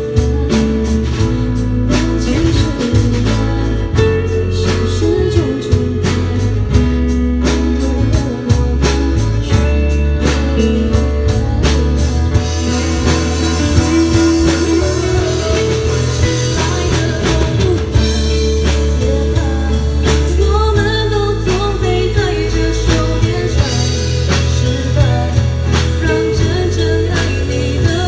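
Live rock music: guitar, bass and drum kit playing with a singing voice over them.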